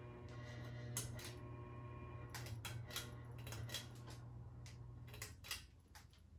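Harbor Breeze Marco Island ceiling fan motor humming, with scattered irregular clicks and ticks. The hum stops about five seconds in.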